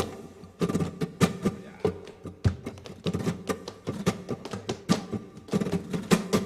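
Flamenco music with rapid, sharp percussive strikes over sustained pitched tones.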